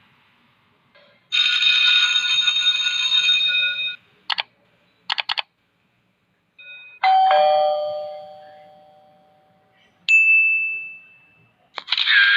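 A string of separate short sound effects with silence between them: a steady chime-like chord for a couple of seconds, one click and then three quick clicks, a struck bell-like tone that rings down, a high ding, and a short burst near the end.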